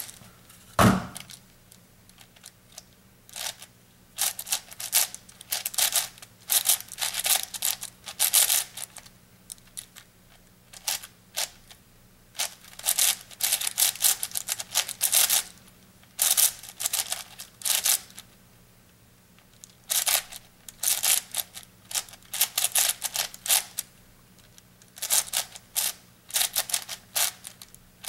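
An 8x8 puzzle cube's plastic layers being turned by hand: quick runs of clicking and clacking turns, with short pauses between the runs.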